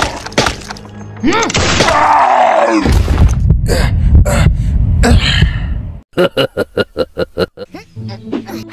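Dubbed cartoon sound effects over music: a pained, gliding groan, then a loud low rumble that cuts off suddenly about six seconds in, then a quick run of short, evenly spaced pitched bursts.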